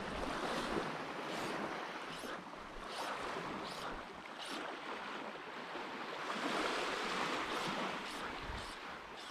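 Gentle surf lapping on a sandy beach, a steady wash of water with soft rushes now and then as small waves break at the water's edge, with a little wind on the microphone.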